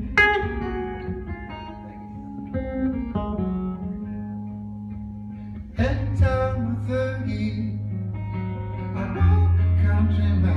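Live music: an acoustic-electric guitar strummed, with a man singing, hard strums just after the start and about six seconds in, and a deep low note held underneath for long stretches.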